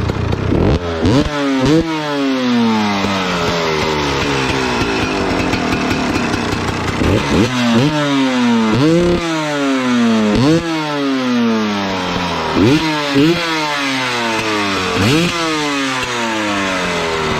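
Two-stroke dirt bike engine blipped repeatedly from idle: about nine sharp throttle blips in loose groups, each rising quickly in pitch and falling back to a steady idle.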